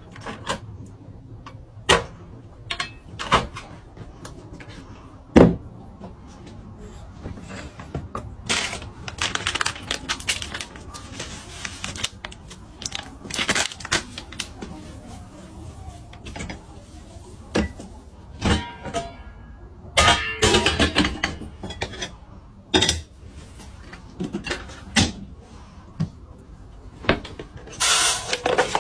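Handling noises from plastic kitchen organizers and containers: scattered clicks and knocks as things are turned, set down and pressed, with rustling in between.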